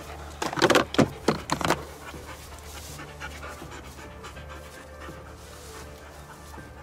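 A hunting dog panting quickly, about four to five breaths a second, for the first couple of seconds. Soft background music comes in after that.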